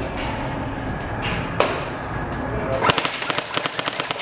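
Airsoft P90-style gun firing a rapid full-auto burst of about a dozen shots a second near the end, after a single sharp shot about a second and a half in.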